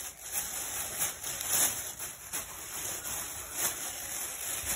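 Thin plastic shopping bag rustling and crinkling in short, irregular bouts as a kitten moves about in it and hands pull at it.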